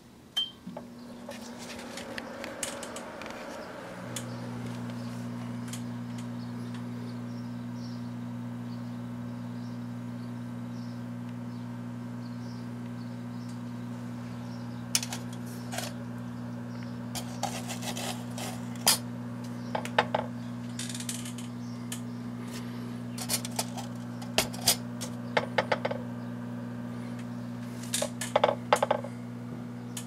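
Kenmore microwave oven started with a short keypad beep, then running with a steady hum that grows louder and fuller about four seconds in. From about halfway on, clusters of sharp crackling snaps come from the 8mm camcorder tape heating and smoking inside.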